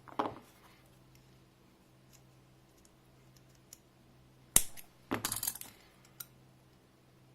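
Small hard parts and tools being handled at a workbench: one sharp click about four and a half seconds in, then a brief clatter and a faint tick.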